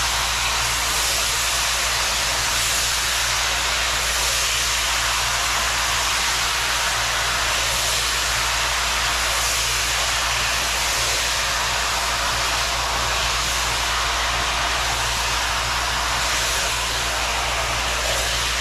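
Green-seasoned chicken pieces sizzling in a large aluminium pot over a gas burner: a loud, steady hiss with a low hum underneath.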